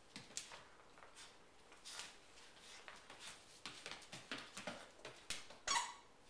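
A puppy's paws and claws scuffing and clicking on a vinyl floor as it shakes and wrestles a stuffed toy. Scattered light clicks and rustles that grow busier, with one louder, brief scuffle near the end.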